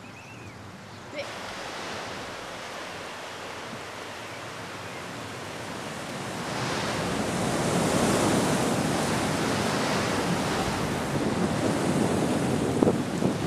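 Steady rushing noise of sea surf and wind. It steps up about a second in, swells louder from about six seconds in, and a few sharp crackles come near the end.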